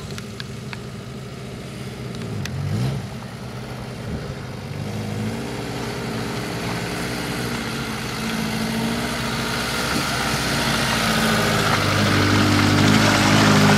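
Small 4x4 off-roader's engine running at low revs as it crawls over rough, muddy ground, growing steadily louder as it approaches, with a brief rise in revs about three seconds in.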